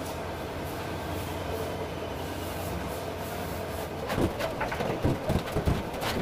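Steady low rumble, then from about four seconds in a quick run of irregular knocks and scrapes from a tiler's metal hand tool working against the tiled floor and wall.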